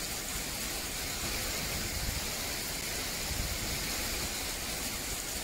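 Hail and rain falling on an asphalt road: a steady hiss, with a low rumble swelling about two and three and a half seconds in.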